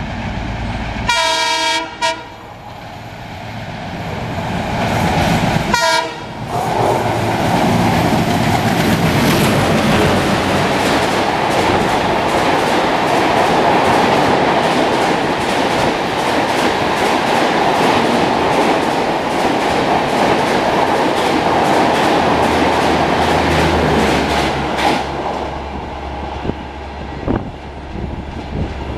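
Twin ALCO-design diesel locomotives (WDM3D leading a WDM3A) sound their horn as they approach, one blast of about a second and then a short one about six seconds in. The locomotives then pass at about 120 km/h, followed by a long, loud rush of Rajdhani coaches with rapid clickety-clack of wheels over rail joints, which eases off near the end.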